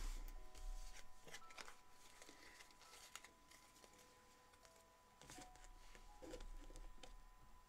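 Faint rustles and light taps of tarot cards being gathered up and handled.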